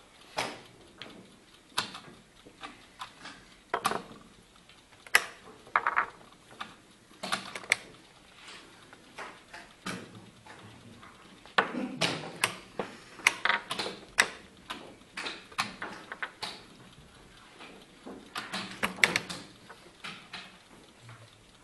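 Blitz chess being played fast: chess pieces knocked down onto the board, alternating with the buttons of a mechanical analogue chess clock being slapped, in quick irregular clicks and knocks that come in bunches.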